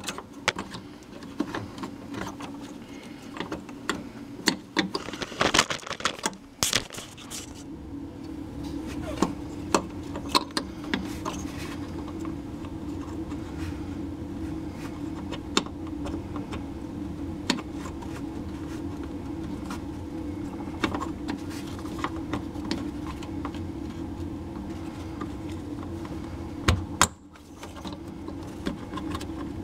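Small plastic clicks and clatter of fuel-line retaining clips and fuel hoses being handled and pushed into place on a fuel pump module. From about eight seconds in, a steady low hum runs underneath, dropping out briefly near the end.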